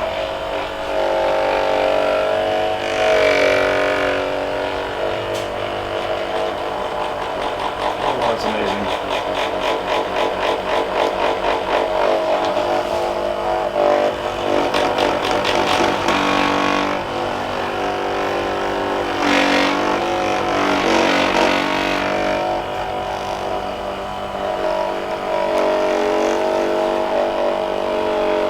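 Handheld electric massager running: a steady motor hum whose pitch shifts now and then, with a stretch of rapid, even pulsing from about eight to seventeen seconds in.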